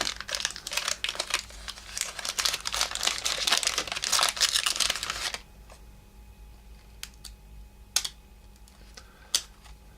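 Wax-paper wrapper of a 1984 Topps baseball card pack crinkling and tearing as the pack is opened and its cards handled, with a card being pulled free of the stick of gum. It stops about five seconds in, leaving a few light clicks.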